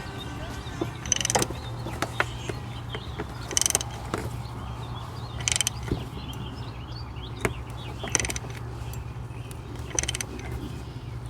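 A ratchet turning a thread tap through the spark plug hole in a Ford Triton's aluminum cylinder head, clicking in short bursts about every two seconds as the handle is swung back between cutting strokes, with a few single sharp clicks between them.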